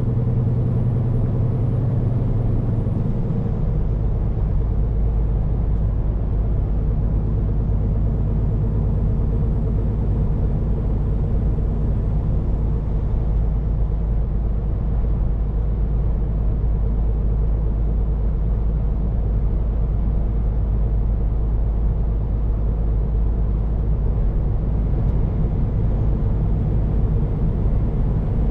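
Scania P410 truck's diesel engine running steadily on the road, heard from inside the cab as a continuous drone. The low engine note changes about three and a half seconds in, then holds even.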